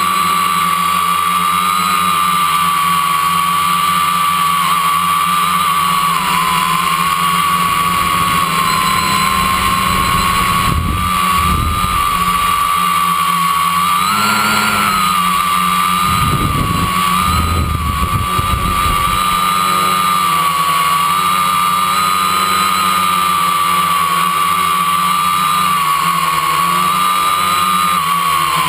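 Quadcopter's brushless motors and propellers whining steadily, recorded from a camera on the airframe; the pitch wavers with throttle and rises briefly about halfway. For several seconds in the middle a low rumble of wind buffets the microphone.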